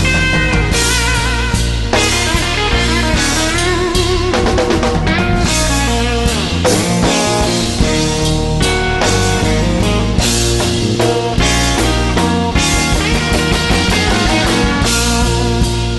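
A live blues-rock band playing an instrumental passage: an electric guitar plays bending, vibrato-laden lead lines over bass guitar and a drum kit.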